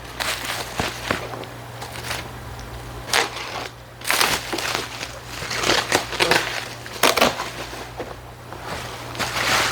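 Plastic packaging wrap crinkling and rustling in irregular bursts as it is pulled off the box by hand.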